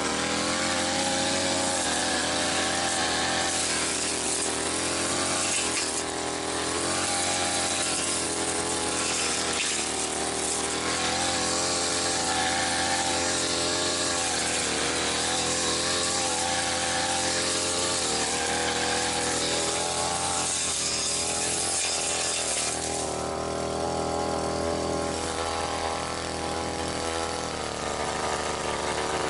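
Brush cutter running at working throttle while its blade cuts weeds, the engine note dipping and rising as the blade takes on load, with a bright whirring hiss that eases somewhat about two thirds of the way through.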